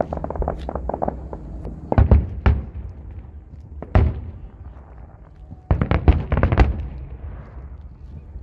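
Aerial fireworks shells bursting: a dense run of crackling reports at first, then loud booms about two and four seconds in, and another quick cluster of cracks and bangs around six seconds.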